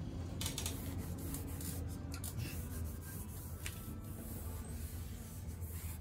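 Cloth rag rubbing and wiping over a brake rotor and locking hub, with a few faint light clicks, over a steady low hum.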